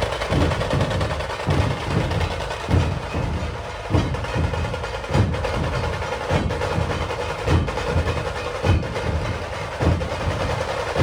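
Maharashtrian dhol tasha ensemble playing: deep dhol strikes repeat in a rhythm over a continuous rattle of drumming above them.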